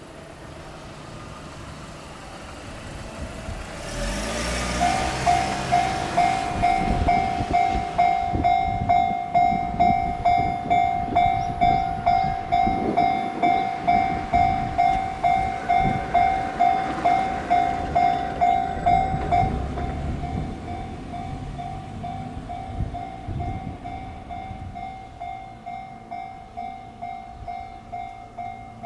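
Japanese railway level-crossing warning bell ringing, a clanging tone about twice a second, starting about five seconds in. A train rumbles past from about four seconds to about twenty seconds in, after which the bell goes on ringing more quietly.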